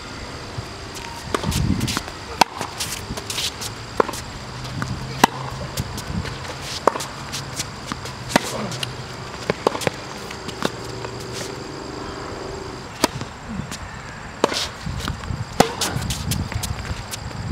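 Tennis balls being struck by rackets and bouncing on a hard court during a baseline rally: a series of sharp pops, roughly one every second, some louder and closer than others.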